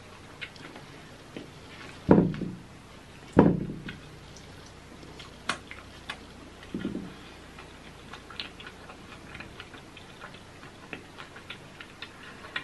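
A man chewing crispy bacon, with many small wet mouth clicks throughout and two louder crunches about two and three and a half seconds in.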